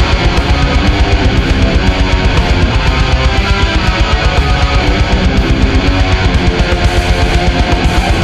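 Death-doom metal: heavy electric guitar riffing over a rapid, even drum beat.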